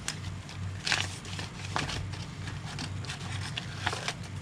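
Crinkling, rustling and light clicking of packaging being handled while a tackle subscription box is unpacked, over a steady low hum.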